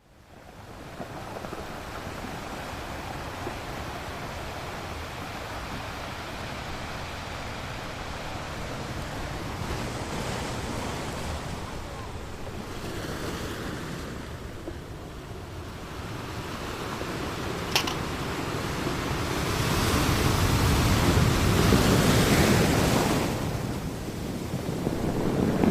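Steady rushing noise of wind on the microphone, growing louder about 20 seconds in, with one sharp click a little before that.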